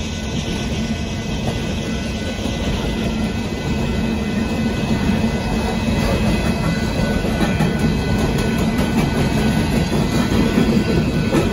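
Union Pacific coal train's hopper cars rolling past: a continuous rumble and clatter of steel wheels on the rails, growing a little louder from about four seconds in.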